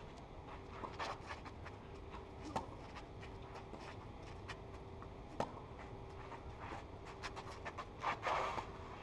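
Tennis rally on a clay court: sharp pops of racket strings striking the ball every couple of seconds, with shoes scuffing and sliding on the clay. Near the end a player lets out a loud breath with a shot.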